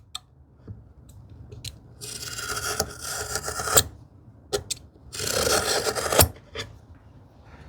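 Two long scraping strokes on wood, with a few small knocks and taps between them.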